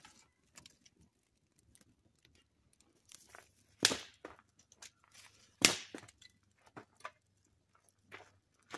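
Dry sticks snapping as kindling is broken by hand: two loud sharp cracks a little under two seconds apart, with lighter crunches and rustles in between.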